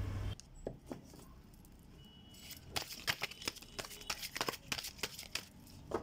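A deck of tarot cards being shuffled by hand: a couple of soft taps, then from about two and a half seconds in a quick run of papery flicks and snaps, about five a second.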